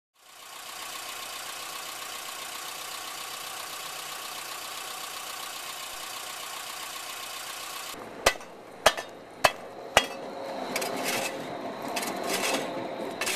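A steady hum and hiss for about eight seconds. Then a metal shovel chopping at ice on pavement: four sharp strikes about half a second apart, followed by scraping.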